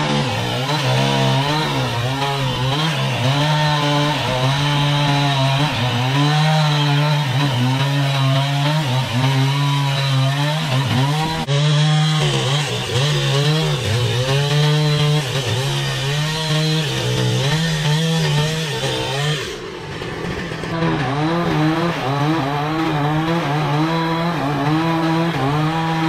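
Chainsaw cutting into a large log, its engine note wavering up and down as the chain bites, easing off briefly about twenty seconds in before picking up again.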